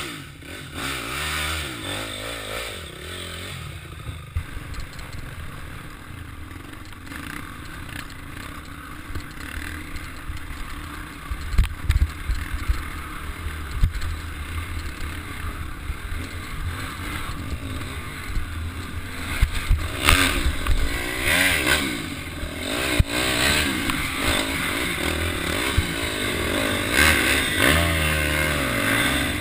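Dirt bike engine running on a rough trail, revving up and down a few times in the second half, with scattered knocks and clatter from the bike over the bumps.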